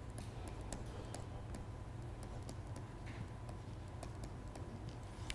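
Light, irregular clicks and taps of a pen stylus on a tablet screen during handwriting, over a steady low hum.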